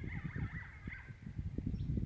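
ICOtec GC500 electronic game caller playing an animal distress call: high, wavering cries that bend up and down in pitch and overlap, over a ragged low rumble.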